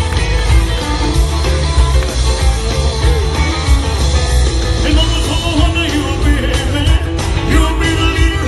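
Live rock and roll music with guitar and a singing voice, loud and continuous.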